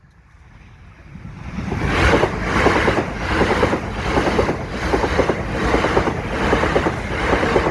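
Train approaching and passing over the level crossing, building up over the first two seconds, then a loud rhythmic clatter of wheels at about two beats a second as the carriages go by.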